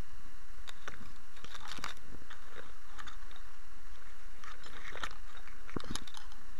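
Long dry grass brushing and crackling against the camera's microphone as it pushes through, in irregular clusters of crackles and clicks over a steady low background noise.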